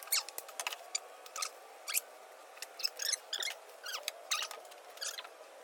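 Irregular short clicks, snips and squeaks of stuck wiring-harness plugs being cut off with cutters.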